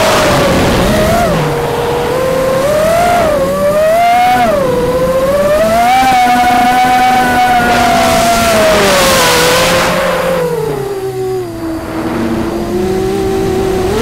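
A small quadcopter's electric motors and propellers whine, the pitch rising and falling constantly with the throttle, with gusts of wind noise on the onboard microphone. The whine sinks low about eleven seconds in and climbs sharply again at the end.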